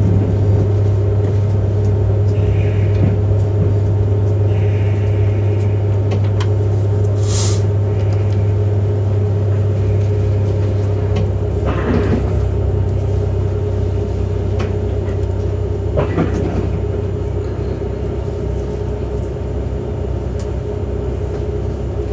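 Inside the passenger car of a Kintetsu Urban Liner Plus electric express train as it comes to a stand at a platform: a steady low hum that slowly grows quieter. A short hiss of air comes about seven seconds in, and a few light knocks follow later.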